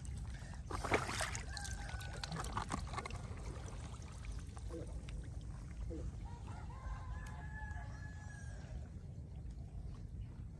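Water splashing and sloshing as hands work in shallow muddy water during the first few seconds, then a rooster crowing once for about two seconds.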